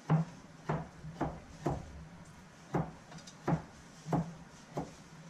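Large kitchen knife chopping down through shrimp onto a thick round wooden chopping block. About eight sharp knocks, roughly one every half second to second, with a short pause near the middle.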